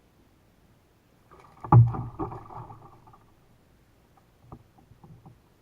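A sudden hollow knock on a plastic kayak hull, followed by about a second of clattering and a few lighter knocks near the end.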